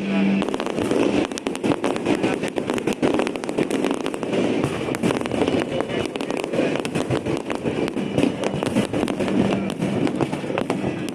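Fireworks display going off: a dense, continuous run of bangs and crackles over a steady rumble.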